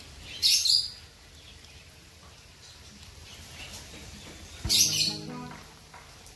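Bird chirping in two short bursts of high calls, about half a second in and again near five seconds, over a quiet background.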